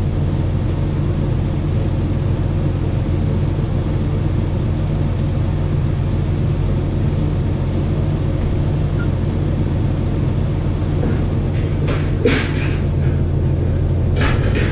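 A truck's engine idling steadily with a low hum, with two short clanks near the end.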